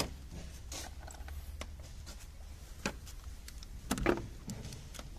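Hand tools and sockets being handled: a few scattered clicks and knocks, the loudest about four seconds in, over a low steady hum.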